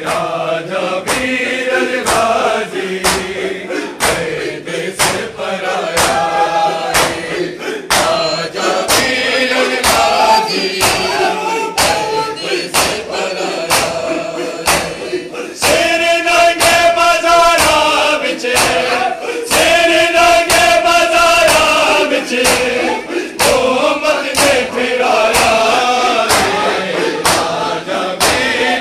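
A crowd of men chanting a mourning lament in unison, with rhythmic chest-beating slaps about once a second. The chorus swells louder about halfway through.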